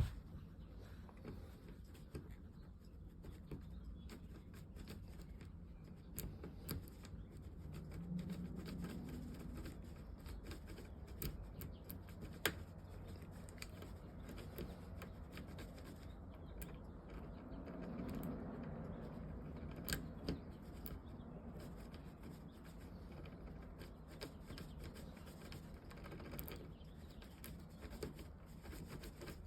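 Faint scattered clicks and scrapes of a metal key being raked in and out and turned slightly in a Kwikset SmartKey deadbolt cylinder that is sticking and won't turn with the key.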